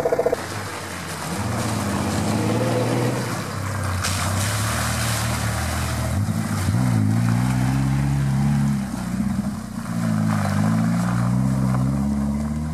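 Jeep Wrangler's diesel engine revving up and down repeatedly as it drives off-road, with a burst of rushing noise about four seconds in.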